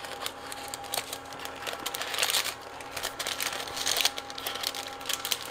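Scissors snipping holes in folded parchment paper, with the paper crinkling between cuts: a run of small sharp clicks and rustles.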